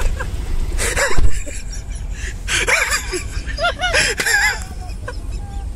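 Short bursts of a person laughing and making wordless voice sounds, three bursts about a second apart, over the car's steady low rumble.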